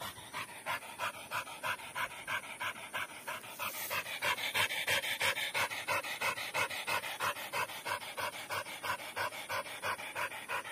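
A dog panting rapidly with its tongue out, an even rhythm of about three to four breaths a second.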